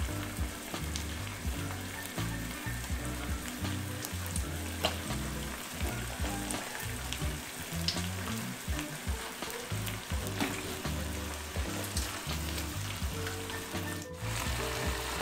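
Cherry-tomato sauce sizzling in a hot pan as dripping spaghetti is lifted from the pasta water and dropped in, with small clicks and splashes from the pasta server.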